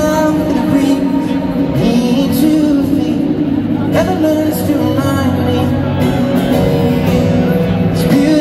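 Live acoustic music from an arena: a singer's voice over piano accompaniment.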